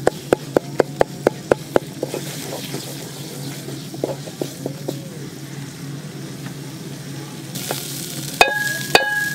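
Wooden spatula stirring and mashing bottle-gourd-peel and shrimp mash in a metal pot while it fries: quick knocks against the pot, about four a second for the first two seconds, over a sizzle. Near the end, two sharp knocks about half a second apart that leave the pot ringing.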